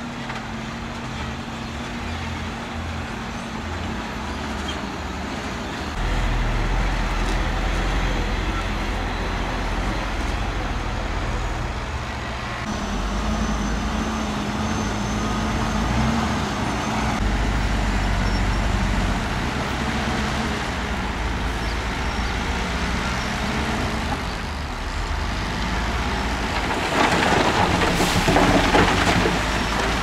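Heavy diesel dump trucks running and driving, the engine drone getting louder about six seconds in. Near the end, a load of dirt and rock pours out of a tipped dump bed with a loud, rattling rush.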